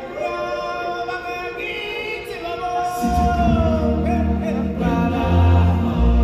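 Music with singing voices in sustained, choir-like chords; a deep bass line comes in about halfway through.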